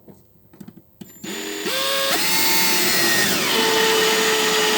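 Power drill running, driving a screw: its motor whine starts about a second in, climbs in pitch in steps, drops lower around halfway, then runs steady.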